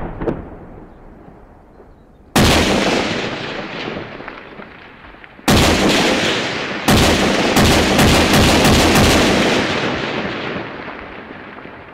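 Heavy weapons fire with long rolling echoes. Loud sudden blasts come about two and a half, five and a half and seven seconds in. The last is followed by a rapid string of shots for a couple of seconds, and all of it dies away into a rumble.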